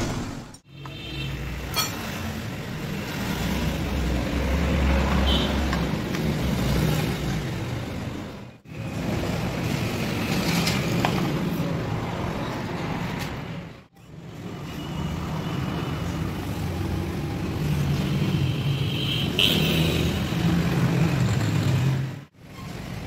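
Steady background noise of motor traffic with a low hum, broken by short silent gaps three or four times.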